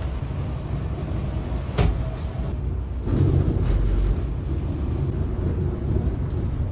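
Low, steady engine and road rumble inside a moving Volvo 9600 sleeper coach, with a sharp click a little under two seconds in. The rumble grows louder from about three seconds on.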